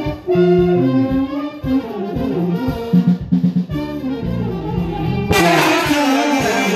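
Live brass band with drum kit playing: brass instruments carry the tune in short phrases. About five seconds in, cymbals come in and the sound turns fuller and brighter.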